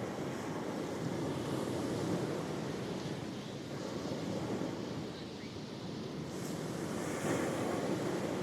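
Ocean waves breaking and washing on the shore, a continuous surf noise that swells and eases, with a slight lull about five seconds in before the next wave rises.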